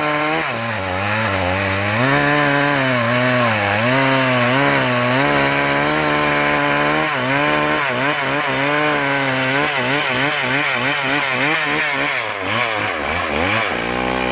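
Stihl MS 381 two-stroke chainsaw cutting into a meranti trunk. Its engine pitch dips and recovers over and over as the chain bites into the wood, with a deeper sag and a quick rise near the end.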